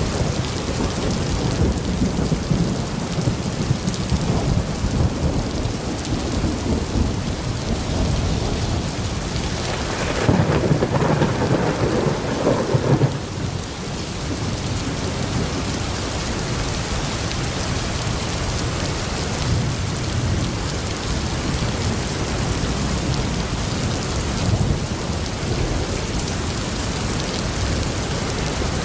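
Steady rain falling during a thunderstorm, with thunder rumbling; a louder roll of thunder comes about ten seconds in, lasts about three seconds and cuts off suddenly.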